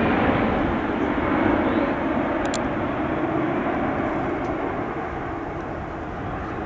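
Boeing 787 airliner's twin turbofan engines, a broad, steady jet rush that slowly fades as the aircraft climbs away.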